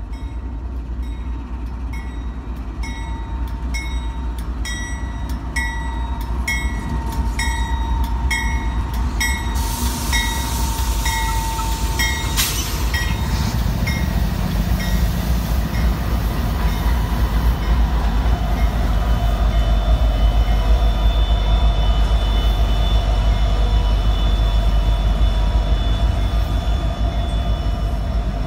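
Norfolk Southern diesel freight locomotives passing close with a steady heavy rumble that grows louder as they go by. A bell dings about twice a second for the first twelve seconds, and a single sharp knock comes shortly after it stops.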